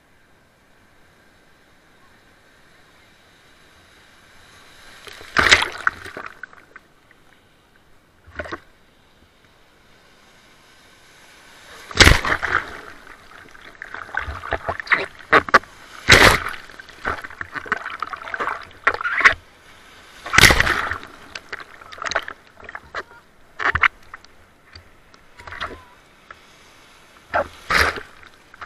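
Sea water sloshing and splashing in the surf, with about six sudden loud splashes a few seconds apart, the first about five seconds in.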